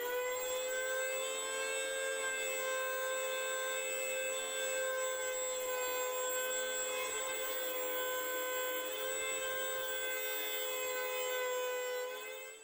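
Rebir electric hand planer, mounted as a benchtop jointer, running at full speed with a steady high whine while a wooden board is fed across its cutter head.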